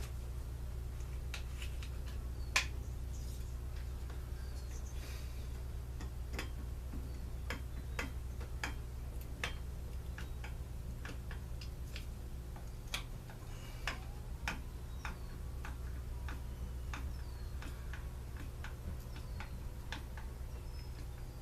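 Irregular light clicks and taps, as of small parts and tools being handled on a workbench, over a steady low hum.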